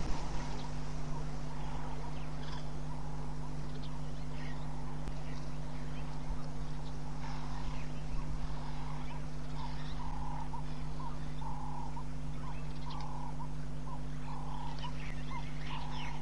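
A small animal's short call repeated at an even pace, a little more than one note a second, becoming clearer in the second half, with a few faint higher chirps, over a steady low electrical hum.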